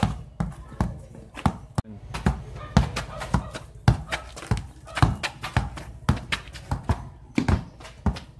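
Basketballs being dribbled hard on a concrete street: a quick, uneven run of sharp bounces, several a second.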